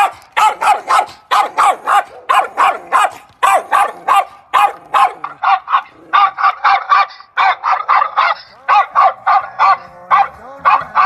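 A dog barking rapidly and without letup, about three short barks a second.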